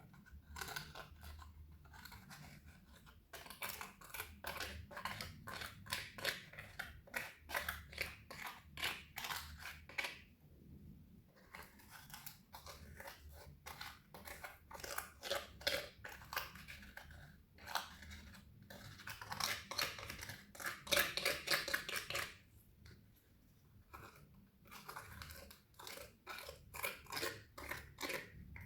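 Clear slime being squished and kneaded by hand: rapid sticky clicks and small pops in long runs, broken by two short pauses.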